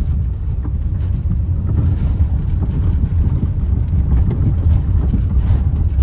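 Steady low rumble of a car driving along a mountain road, heard from inside the moving car.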